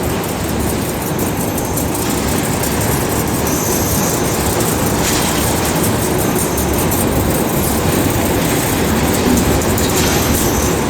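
Steady rumble and clatter of copper tube production machinery running on a factory floor, with a faint high whine that comes and goes a few times.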